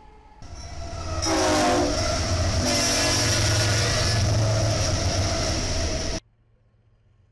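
Union Pacific freight train passing at speed, with rumble and rail noise. Its diesel locomotive's multi-chime horn sounds in two blasts about a second apart. The whole sound cuts off suddenly about six seconds in.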